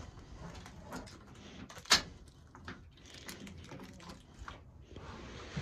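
Small knocks and clicks of hands handling things in a boat's engine bay, with one sharper click about two seconds in.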